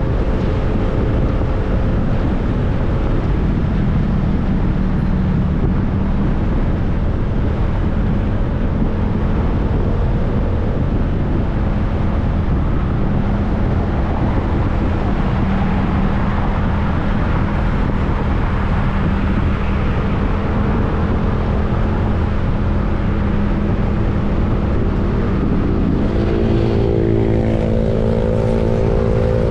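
Motorcycle being ridden at a steady pace: its engine runs with an even hum under a loud, constant rush of wind and road noise. More engine tones stand out near the end.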